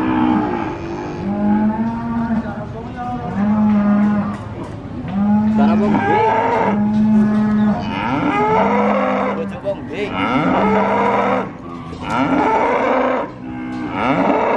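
Cattle mooing over and over: about ten calls, each lasting about a second, in quick succession.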